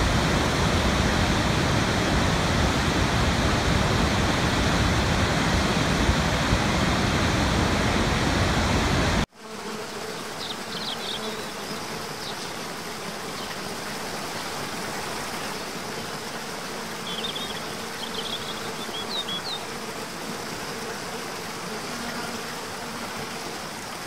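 A large waterfall pouring, a loud, steady rush of water. About nine seconds in it cuts abruptly to the quieter, steady rush of a tiered forest cascade, with a few short high chirps in two brief clusters.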